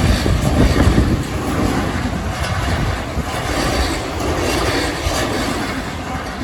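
Electric commuter train passing close by at a level crossing: a heavy rumble of wheels on rail with rapid clatter, dying away slightly toward the end.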